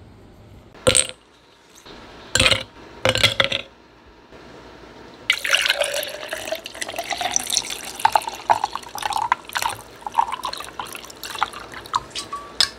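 Three sharp clinks, then a dark fizzy drink poured from a glass bottle over ice into a stainless steel tumbler. The pour's pitch rises steadily as the tumbler fills, and the bubbles crackle.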